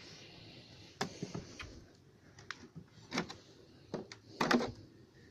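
Wooden comb frames knocking and scraping against a beehive box as they are lifted out and handled: a string of short knocks and clacks, the loudest cluster about four and a half seconds in.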